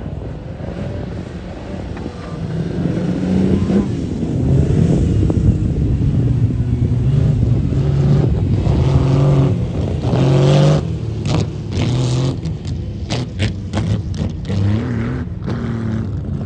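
Classic sports car engines revving up and down as several cars drive past, the pitch stepping with gear changes. A string of sharp cracks follows in the second half.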